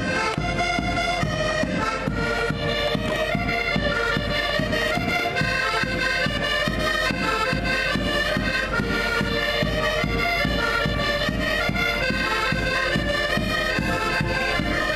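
Several button accordions playing a lively folk tune together in unison, with a bass drum keeping a steady beat underneath.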